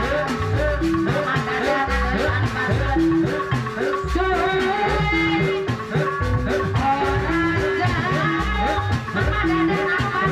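Live Sundanese jaipong music: kendang drums beating a steady rhythm under a short melodic figure of repeated notes.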